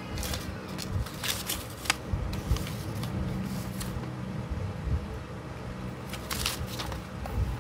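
Crisp paper rustling and crinkling in several short bursts as a folded paper instruction leaflet is opened out and handled, over a steady low hum.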